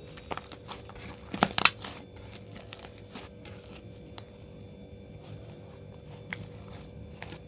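Thick slime being stretched, folded and squeezed by hand, giving sticky crackles and snaps. The loudest is a quick cluster of snaps about one and a half seconds in, with scattered smaller pops after.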